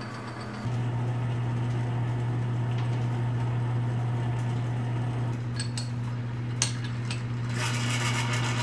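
Logan metal lathe running with a steady hum while a metal blank is drilled and bored. A few sharp clicks come about six seconds in, one of them loud, and a hissier cutting noise starts near the end.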